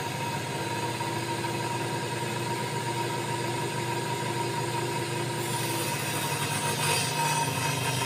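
Angle-grinder-driven mini table saw running with a steady motor whine as the blade spins free. In the last few seconds a brighter hiss joins as the board is fed into the blade for a rip cut.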